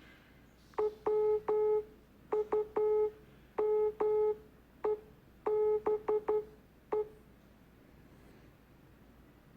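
Morse code sent as beeps: one steady mid-pitched tone keyed on and off in a sequence of short dits and longer dahs, grouped into letters with small pauses between groups. The sequence runs for about six seconds and then stops.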